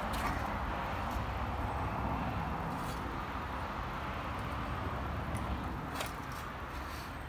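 Steady outdoor background noise with a few light clicks and knocks, as a length of steel box section is slid and set in place on a mitre saw; the saw is not cutting.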